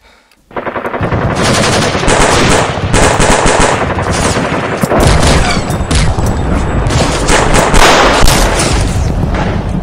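Sustained automatic rifle fire from several guns at once, the shots overlapping into a continuous volley. It breaks in suddenly about half a second in, after a brief hush.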